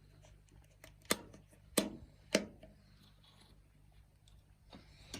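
Three sharp knocks, about two-thirds of a second apart, starting a little over a second in, in a small room.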